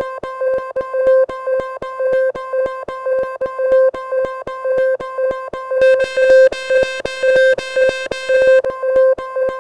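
A speaker plays a water-ejection cleaning tone: a low buzzing tone pulsed rapidly and evenly, meant to shake water and dust out of the speaker grille. From about six seconds in it turns harsher and buzzier for a couple of seconds.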